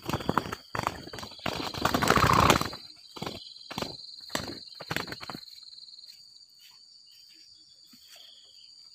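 Spotted doves' wings flapping and beating in a run of flurries as a wild dove fights a tethered decoy dove and is caught. The flurries are loudest about two seconds in and die away after about five seconds, over a steady high insect drone.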